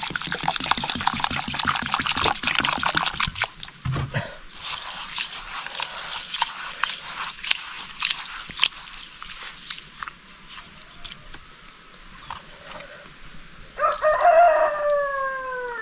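Liquid pouring and splashing for about the first three seconds, then faint scattered clicks and crackles. Near the end a rooster crows once: a loud call of about two seconds that falls in pitch at its end.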